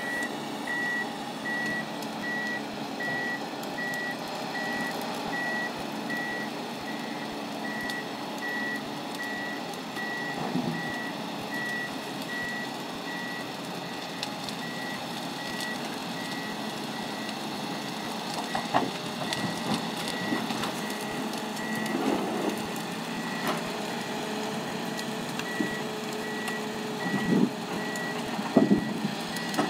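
Ponsse Elephant King forwarder's warning alarm beeping at a steady pace over its engine running. In the second half come a few loud clunks from the log crane, the loudest near the end.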